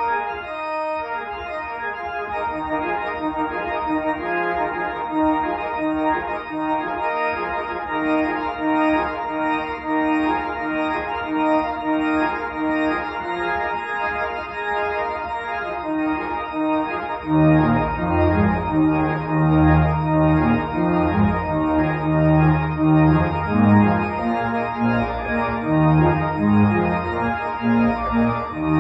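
Church organ playing sustained chords, with deep bass notes coming in a little over halfway through and the music growing louder.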